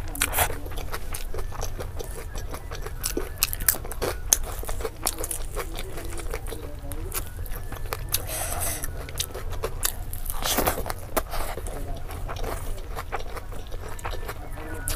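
Close-miked chewing with many wet mouth clicks. A hand squishes and mixes rice with curry on a foil sheet, making longer rustles about halfway through.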